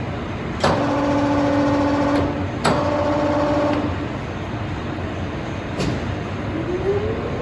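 Blanchard No. 20-36 rotary surface grinder being switched on: two sharp clicks, each followed by a steady electrical hum lasting about a second. Near the end there is another click, then the grinder's spindle motor starts, a whine rising in pitch as it spins up.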